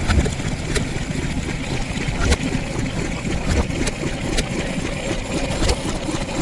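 Small vintage petrol engine running steadily at idle, with sharp clicks now and then.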